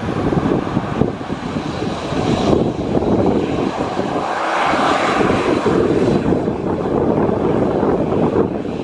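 Passenger airliner's engines running loud close by, swelling around the middle, with gusty wind rumbling on the microphone.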